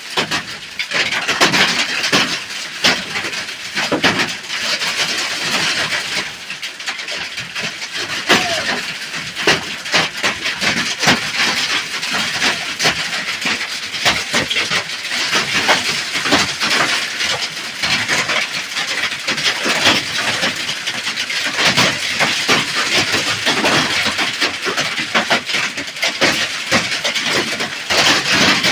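Heavy hail hitting the hut, a dense, deafening clatter of countless small impacts that never lets up.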